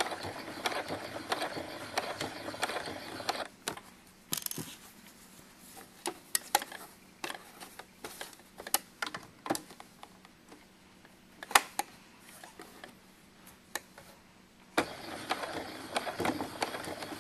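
Electric sewing machine stitching for about three and a half seconds, then stopping. Scattered light clicks and taps follow while the fabric is repositioned under the presser foot, and the machine starts stitching again near the end.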